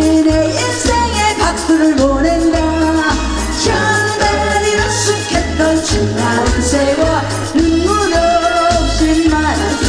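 A woman sings a Korean trot song live through a microphone and PA, backed by a live band of drums, bass and keyboards, with a bass beat pulsing about twice a second.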